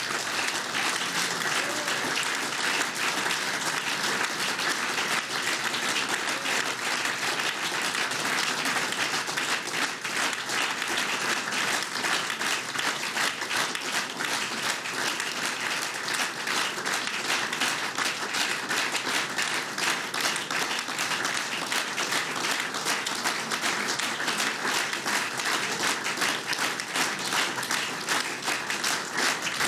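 Audience applause, a dense, steady clapping.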